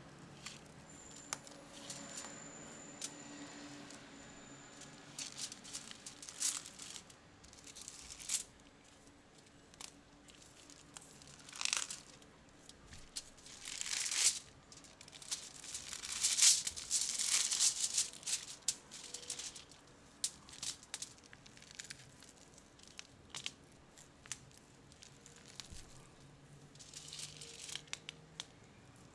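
Crinkling of a shiny wrapping sheet and crunching of broken chocolate bars and biscuits as hands squeeze them together, in irregular bursts that are loudest in the middle.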